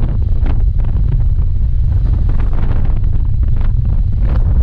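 Wind buffeting the microphone over the steady low rumble of a motorcycle riding on a rough unpaved road, with scattered short knocks.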